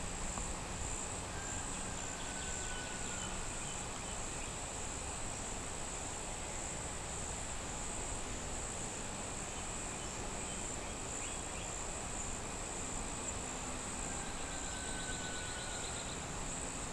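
Steady, high-pitched chorus of insects, crickets by their sound, droning without a break. A faint, slightly falling whistle is heard twice, early and again near the end.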